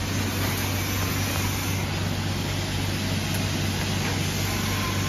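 Steady factory machinery noise: an even hiss with a constant low hum underneath, and no separate welding clicks or strikes.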